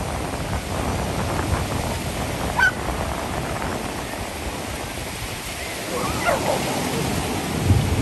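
Lake waves washing ashore with wind on the microphone, under a steady hiss of surf. Short high calls stand out twice, once about two and a half seconds in and again around six seconds in.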